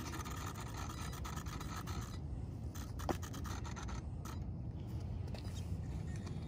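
Wind on the microphone: a steady low rumble with fine crackling.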